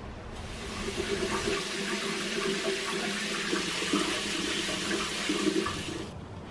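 Water running steadily from a bathroom tap. It starts abruptly just after the start and cuts off suddenly near the end.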